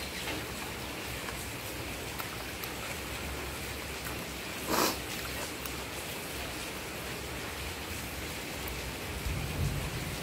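Steady outdoor background hiss, with one short, louder rush of noise a little before the middle.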